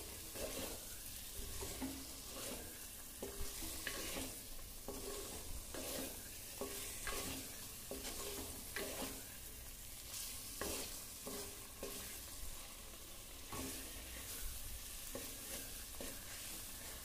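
A wooden spatula stirring masala and boiled eggs in a clay pot, in strokes of about one to two a second, over a steady sizzle of the masala frying in oil. The eggs are being sautéed in the masala before water is added for the curry.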